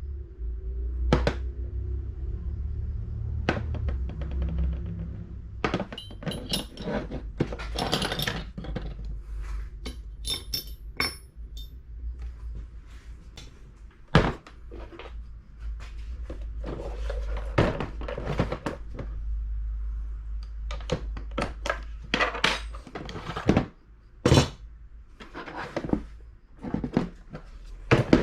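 Irregular knocks, clicks and clatters of hard objects being handled, over a low steady rumble.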